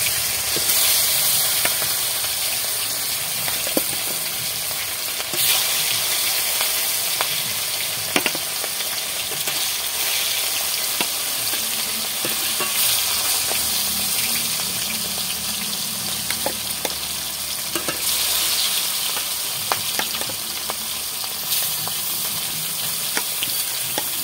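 Pieces of rupchanda (pomfret) fish frying in hot oil in a kadai, giving a steady sizzle. The sizzle swells several times as more pieces are laid in, with scattered small crackles and pops.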